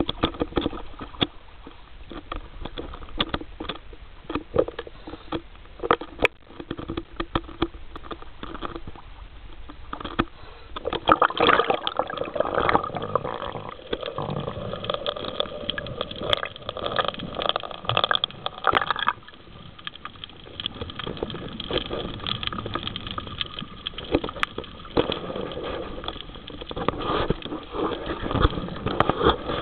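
Water sloshing and gurgling around a camera at the sea surface and underwater, with frequent sharp clicks and crackles. It is louder and fuller for several seconds around the middle.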